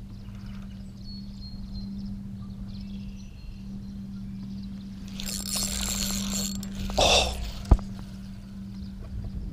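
A fishing rod being cast from a boat: a brief rush of noise about seven seconds in, then one sharp click, over a steady low hum from the boat.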